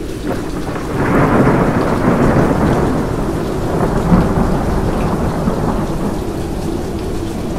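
Rolling thunder over steady rain: the rumble swells about a second in and slowly fades away.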